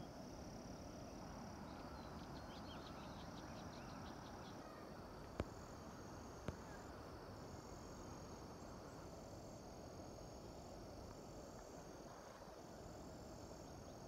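Faint open-air hillside ambience: high, thin insect calls that come and go in repeated stretches over a low, even rushing noise, with a quick run of ticks a few seconds in and two small clicks near the middle.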